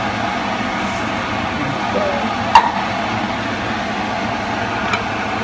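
Steady hiss from the pot of sofrito and raw rice on the lit gas burner, with one sharp click about two and a half seconds in.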